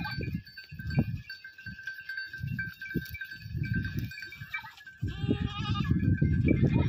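A herd of goats browsing the leaves of a small tree, with uneven low bursts of noise from the animals and branches. A goat bleats briefly about five seconds in.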